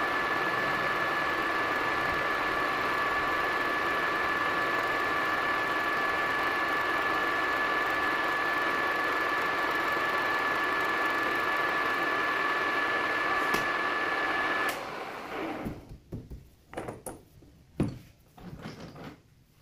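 Metal lathe running with a steady whine while the tool turns a bolt held in the chuck. About fifteen seconds in it shuts off, followed by a few scattered clicks and knocks.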